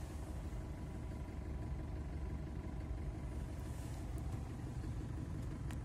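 Fiat Ducato's 2.5-litre turbodiesel engine idling steadily, heard from inside the cab. A single click near the end.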